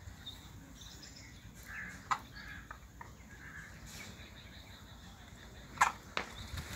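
Faint bird calls, with two short sharp sounds, one about two seconds in and a louder one near the end.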